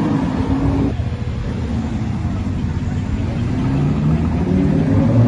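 Lamborghini Urus twin-turbo V8 engines driving past: one car's engine note passes and drops away about a second in, then another approaches, its engine note rising in pitch and getting louder toward the end.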